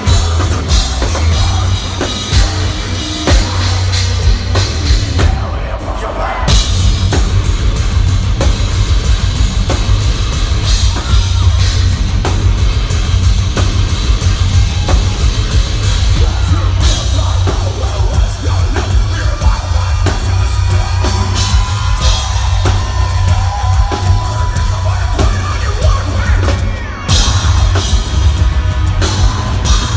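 Heavy metal band playing live: pounding drum kit with fast, dense drum hits, distorted guitars and heavy bass, all loud and continuous.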